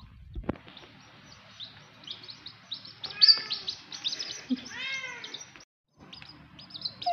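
A brood of young chicks peeping rapidly: many short, high chirps overlapping. There is a faint knock shortly after the start and a brief gap about five and a half seconds in.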